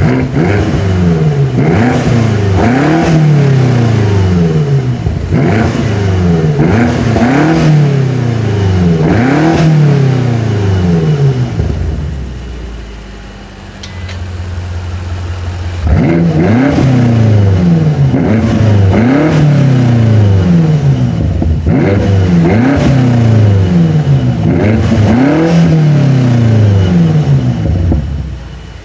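Exhaust of a 2019 BMW M5 Competition's twin-turbo V8, heard from behind the car, revved repeatedly at standstill. There are about five quick free revs, each rising and falling back, then a few seconds of idle about halfway through. After that comes another run of about five or six blips, settling back to idle near the end.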